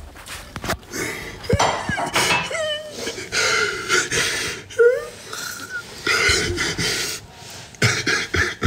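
Breathy, wheezing vocal sounds and gasps, broken by short squeaky whines that bend up and down in pitch.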